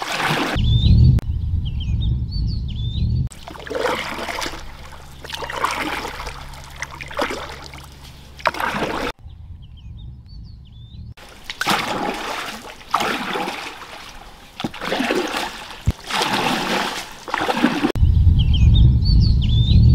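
Water splashing and trickling in repeated bursts as a wooden paddle strokes the water beside a small boat. Short high chirps come through in the quieter moments, and a low rumble is loud near the start and the end.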